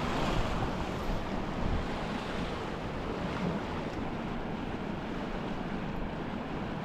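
Steady wash of water past a moving sailboat's hull, with wind blowing on the microphone.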